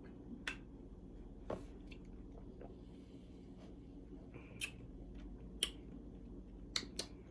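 Faint wet mouth clicks and lip smacks of someone sipping and tasting soda, about six short clicks spread over a low steady room hum.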